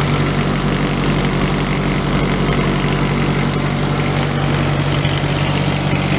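Kubota D722 three-cylinder diesel idling steadily, run up to temperature with fresh coolant to build pressure in the cooling system for a leak check.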